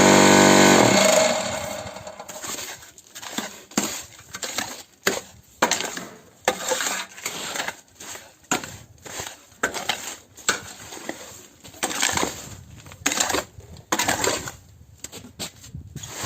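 A cinder-block making machine's vibrator motor hums loudly and stops about a second in. Irregular metallic clinks and scrapes follow as the machine and its metal parts are worked.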